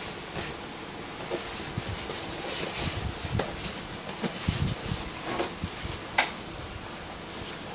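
Polystyrene foam packing and cardboard being handled: scraping and rubbing as the foam pieces are worked loose from a TV's box, with a few sharp knocks, the sharpest about six seconds in.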